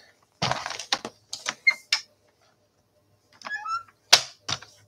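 A plastic paper trimmer set down on a craft table with a clatter, then scattered clicks and knocks as the trimmer and a strip of cardstock are handled and lined up. The sharpest click comes a little past four seconds in.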